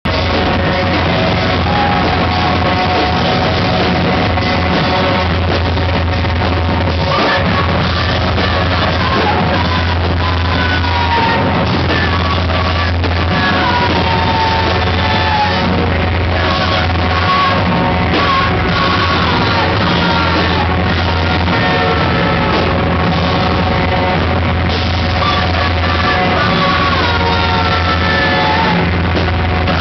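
Live rock band playing loud, dense, distorted noise rock without a break, with heavy bass and drums and yelled vocals over the top.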